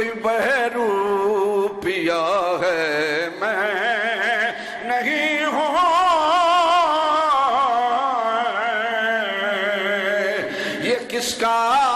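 A man's voice singing a melismatic devotional chant through a microphone: long held notes that waver up and down, broken by short pauses every few seconds.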